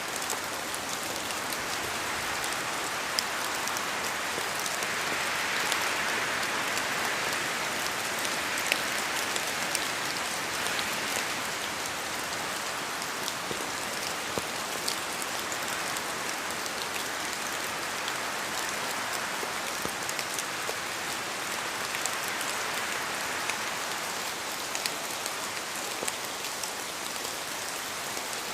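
Steady rain falling, a dense hiss with many sharp individual drop ticks hitting a surface, swelling a little in intensity several seconds in.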